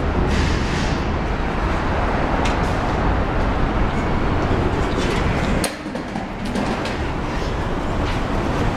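A train rumbling across the elevated railway bridge overhead, heard from beneath the overpass. The rumble dips about six seconds in.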